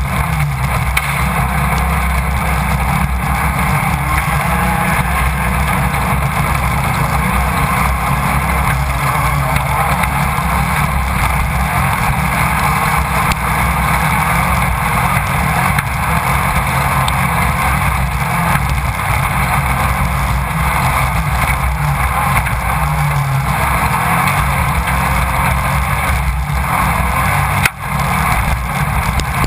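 Air-cooled VW engine of a Class 1600 off-road race buggy running hard and steadily, heard from the onboard camera with road and wind noise. Near the end there is one sharp crack and a brief drop in level.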